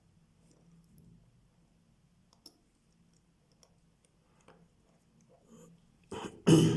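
Faint, scattered small clicks of watchmaker's tools handling the parts of a mechanical watch movement, then a loud short rush of noise near the end.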